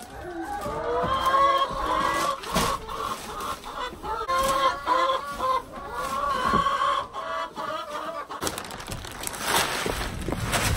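Laying hens clucking repeatedly, with a rustling, handling noise near the end.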